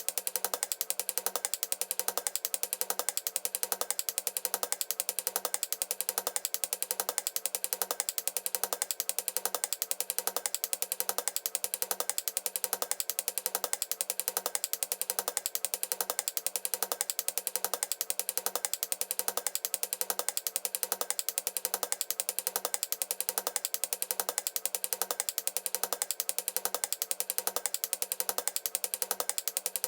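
Machine sound effect: rapid, even ratchet-like clicking over a steady low hum, going on without change.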